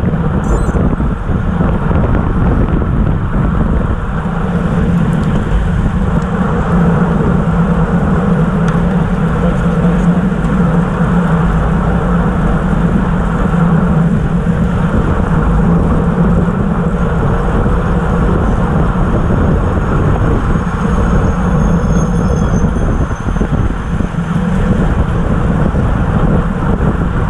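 Steady wind noise and road rumble on a racing bicycle's onboard camera at about 26 mph.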